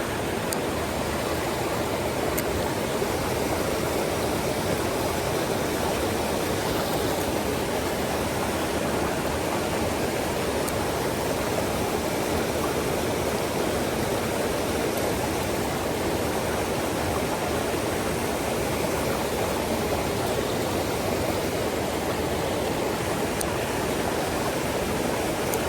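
Mountain stream water rushing over rocks, a steady, even flow.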